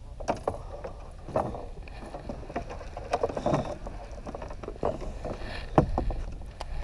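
Small fishing boat on choppy water: wind rumbling on the microphone with scattered knocks and water slaps against the hull, the sharpest knock near the end.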